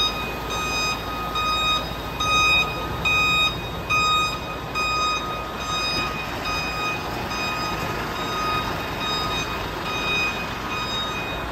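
Truck reversing alarm beeping steadily, about one and a half beeps a second, over the tractor unit's engine running.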